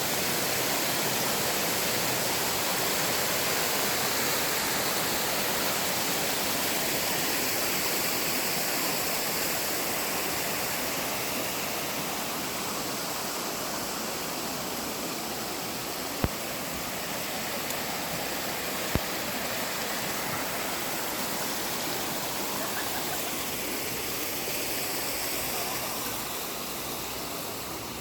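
Mountain valley stream rushing, a steady wash of water noise that slowly gets a little quieter over the second half. Two sharp clicks come about halfway through, a few seconds apart.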